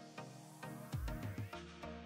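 Electronic background music: plucked notes over a rising sweep, with a deep bass beat coming in about halfway through.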